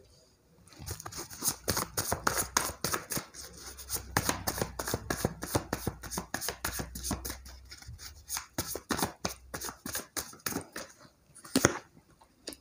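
Tarot deck shuffled by hand: a fast run of card slaps and flicks, several a second, for about ten seconds, then a pause and a couple of louder snaps near the end.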